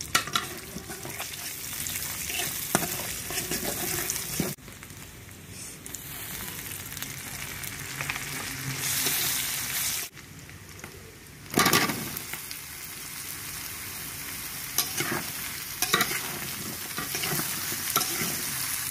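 Sliced onions sizzling in hot oil in an iron karahi, a metal spatula scraping and clicking against the pan as they are stirred. A little past halfway the sizzling surges loudly, and near the end chopped vegetables are frying and being stirred in the pan.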